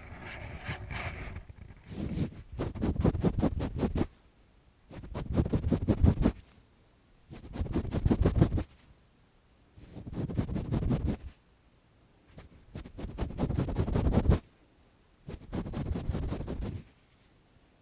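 Lace-gloved fingers rubbing and scratching against a microphone's ear for ASMR ear-cleaning sounds. The strokes come in six scratchy bursts of a second and a half to two seconds each, with short pauses between them.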